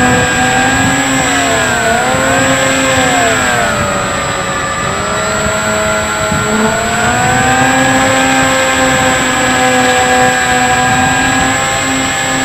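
Bixler 3 RC plane's brushless electric motor and pusher propeller whining in flight, heard from on board with rushing air noise. The whine's pitch dips and rises with throttle changes, sinks lower around the middle, then climbs back and holds steadier in the second half.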